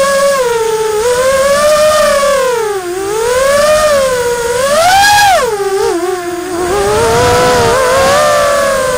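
Electric motors of a small radio-controlled aircraft whining, heard from its onboard camera, the pitch swooping up and down with the throttle: it climbs to its highest about five seconds in and dips lowest around three and six seconds in.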